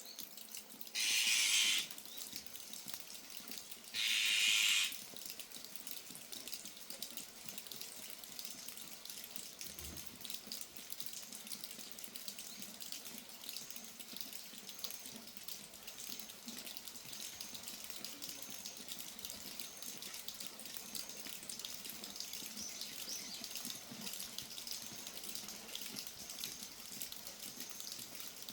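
Steady rain with water dripping and pattering. Near the start come two loud, brief bursts of sound about three seconds apart.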